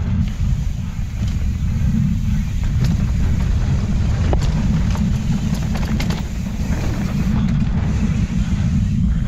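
Wind rumbling on the microphone of a camera riding along on a mountain bike moving down a trail, with a few sharp clicks and knocks from the bike over the ground.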